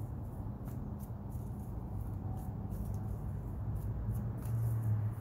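A deck of tarot cards being shuffled by hand, giving soft, irregular clicks and flicks over a steady low hum.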